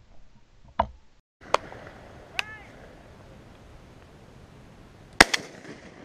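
Shotgun shots: three fainter reports in the first two and a half seconds, then one much louder, close shot about five seconds in.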